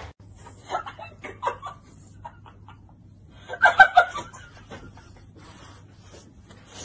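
A woman giggling in short, choppy, cackling bursts, loudest about three and a half seconds in, when she laughs behind her hand.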